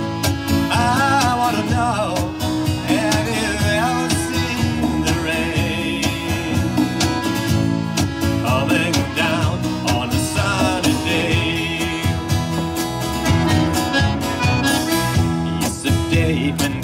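Live folk band playing: strummed acoustic guitar, accordion, electric bass and hand-played congas keeping a steady beat, with a sung melody over the top.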